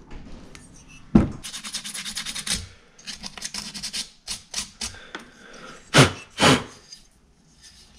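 Razor blade cutting and scraping away excess gasket material around the inlet manifold on a two-stroke moped's aluminium cylinder. A sharp click about a second in, then a fast run of short scraping strokes, scattered scrapes, and two louder swipes near the end.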